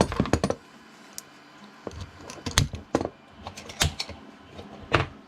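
Small aluminium steering parts for an RC tractor being handled, giving irregular light clicks and clinks: a quick cluster at the start, then single clicks every second or so.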